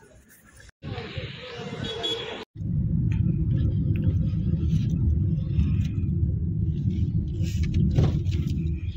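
Steady low rumble of a car driving along a road, heard from inside the cabin. It starts after a sudden cut about two and a half seconds in; before that there is a short, fainter stretch of other noise.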